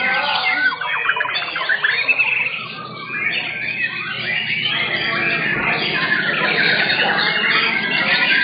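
Several white-rumped shamas (murai batu) singing at once, a dense tangle of fast trills, whistles and chattering notes that overlaps without a break.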